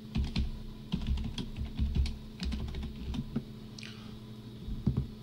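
Typing on a computer keyboard: a quick run of keystrokes for about three seconds, then a couple more keystrokes near the end.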